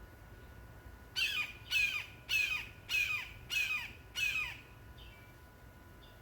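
Red-shouldered hawk screaming: a series of six loud, down-slurred calls about half a second apart, then a faint distant call near the end.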